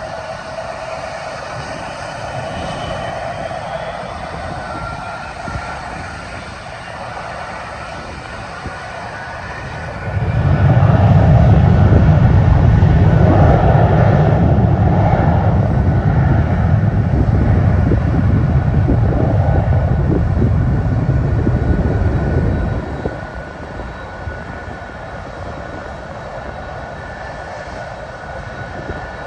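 Jet airliner engines whining steadily. A loud low rumble starts suddenly about ten seconds in and drops away suddenly some thirteen seconds later.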